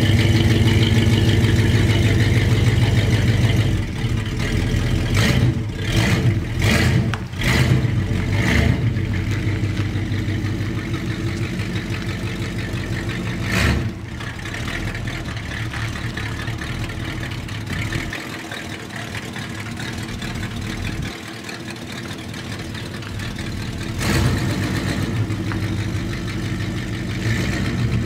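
1978 Chevrolet pickup's engine running as the truck pulls away down the driveway. It gives several short revs in the first several seconds, then grows quieter with distance, and swells again about three-quarters of the way through.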